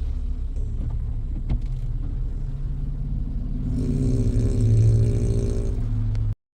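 A Frenchton (French bulldog–Boston terrier cross) snoring with a steady low rumble. About four seconds in, it swells into a louder snore with a hissing edge, then cuts off suddenly.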